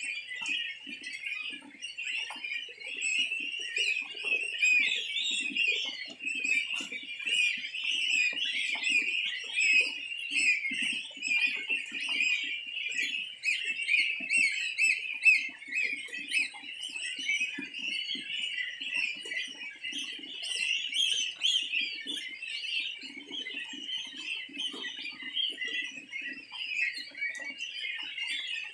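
A large flock of young goslings peeping continuously, many high thin calls overlapping into a dense chorus. Soft irregular low rustling runs underneath.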